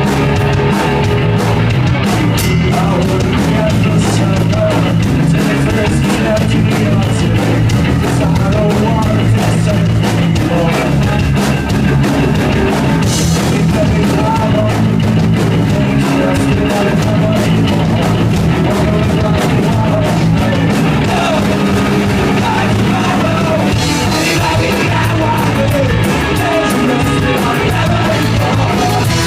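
Punk rock band playing live at full volume: drum kit with crashing cymbals, guitars and bass driving steadily.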